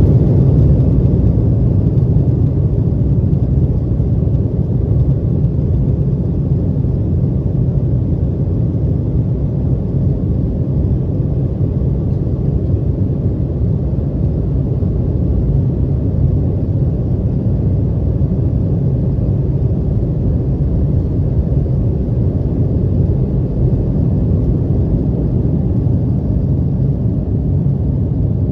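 Cabin noise of an Embraer 175 on its takeoff roll and climb-out: the twin GE CF34-8E turbofans at takeoff thrust and the runway rumble blend into a steady, low rumble heard from inside the cabin. By the end the jet has lifted off.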